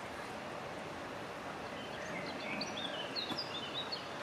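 A songbird sings a quick run of short, pitch-stepping chirps through the second half, over a steady outdoor background hiss.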